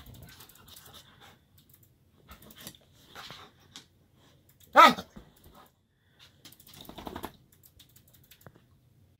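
Canadian Eskimo dog vocalizing while rolling on its back: a loud, short call that falls in pitch about five seconds in, and a softer, longer call around seven seconds. Between the calls the blanket rustles and scrapes as the dog squirms on it.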